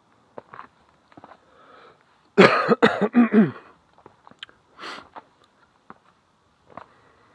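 A person coughing about four times in quick succession, about two and a half seconds in, among faint footsteps.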